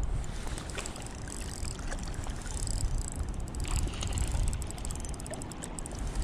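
Wind rumbling on the microphone, with lake water lapping at a rocky bank.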